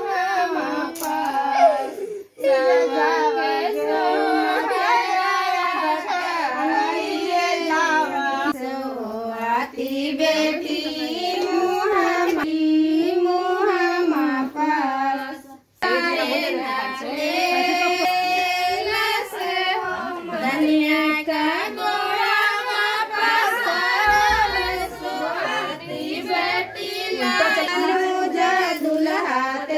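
A high-pitched voice singing a melody with held, bending notes and little or no accompaniment. The singing breaks off twice, briefly, about two seconds in and about halfway through.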